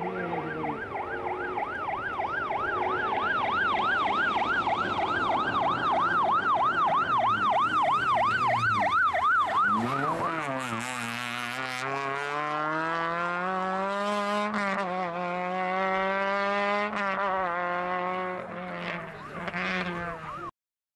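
Rally course car, a red hatchback with a roof beacon, approaching with its electronic siren yelping rapidly up and down, about three times a second. About halfway through it passes close by, the siren stops, and the engine is heard accelerating away, its pitch rising through a couple of gear changes before the sound cuts off abruptly near the end.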